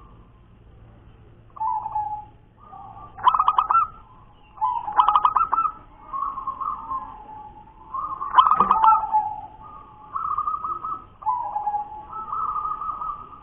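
Zebra dove (perkutut) singing: repeated phrases of soft coos around one pitch, broken by quick stuttering trilled notes, about half a dozen times.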